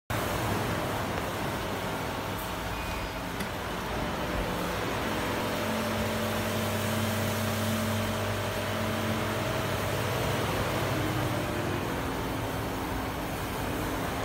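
Electric tailgate struts retrofitted to a Mazda 5 whirring steadily as the power tailgate lifts. The whir starts about four seconds in and changes pitch near the end, over a steady background rush.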